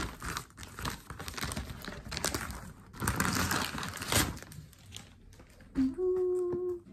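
Gift-wrapping paper crinkling and rustling as it is pulled off a boxed present. Near the end comes a short held vocal note.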